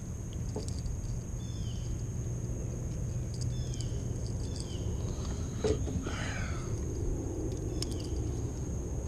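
Outdoor ambience: a steady high insect drone with a few short, falling bird chirps and a brief warble. A single sharp knock comes about five and a half seconds in, over a low rumble of handling or wind noise.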